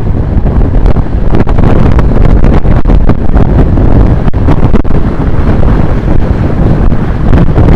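Loud, steady wind buffeting on the camera microphone of a road bike descending at high speed.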